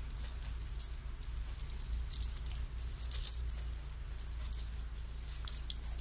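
Irregular light ticks and pattering on a wet concrete floor, the loudest tick about three seconds in, over a low steady hum.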